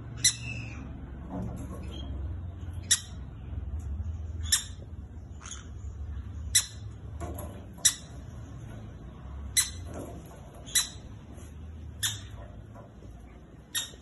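Short, sharp parrot calls, about nine of them spaced a second or two apart, over a steady low rumble.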